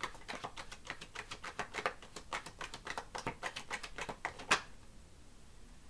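Tarot cards being shuffled by hand: a quick run of crisp card clicks, about six a second, ending in one sharper slap about four and a half seconds in.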